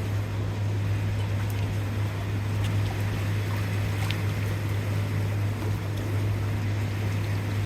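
Steady heavy rain, an even rushing hiss with a few faint ticks of drops, over a constant low hum.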